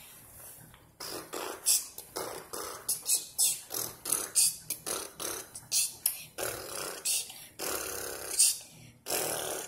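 A child beatboxing: a rhythmic run of mouth-made pops and sharp hissing hits, starting about a second in.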